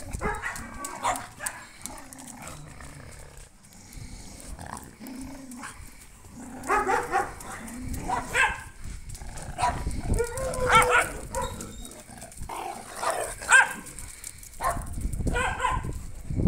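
A group of dogs barking and giving other short calls in irregular bursts as they play and scuffle together.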